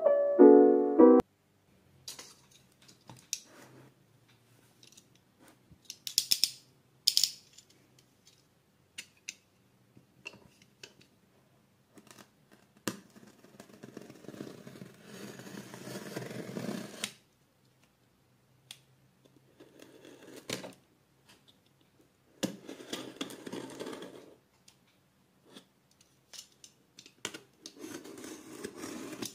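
Utility knife cutting through the packing tape on a cardboard box in several separate scraping strokes, the longest lasting about three seconds, with a few short sharp clicks between.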